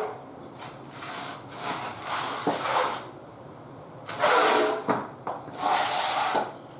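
A motorcycle stand being pulled out and moved on the floor: four irregular bursts of scraping and rubbing, with a couple of short knocks. The loudest burst comes about four seconds in.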